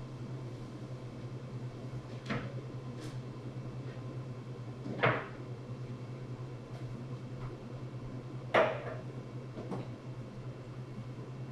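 Sharp knocks and clatters of things being handled at a kitchen counter, such as a cupboard door or dishes, over a steady low hum. There are a few light knocks, and the two loudest come about five and eight and a half seconds in.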